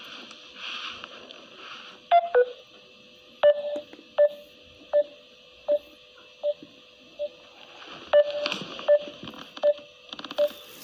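Short electronic phone beeps of one pitch, starting about two seconds in and repeating about every three-quarters of a second over a faint hiss: the tones of a video call whose connection has dropped.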